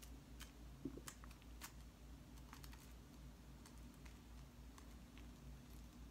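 Near silence: a low steady room hum with a few faint, scattered clicks.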